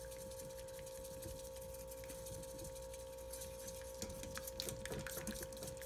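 A silicone whisk stirring a thin flour-and-milk mixture in a stainless steel saucepan, giving faint soft clicks and scrapes that come more often in the second half. Under it runs a steady faint tone.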